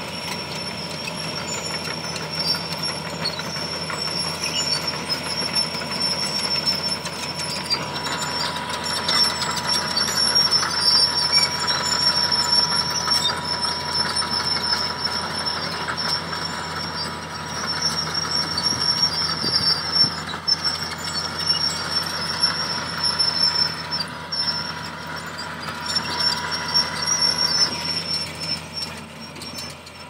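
Hitachi hydraulic excavator working under load, its diesel engine running with a steady high hydraulic whine as the arm swings and shakes a large stump. The sound swells and eases repeatedly, busiest through the middle.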